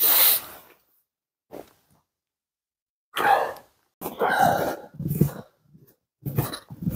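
A short breathy exhale, then silence, then boots crunching along a snowy trail, short steps about a second apart, from about three seconds in.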